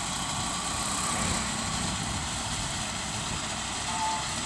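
Tractor diesel engine running steadily under load while driving a side-mounted reaper through standing wheat.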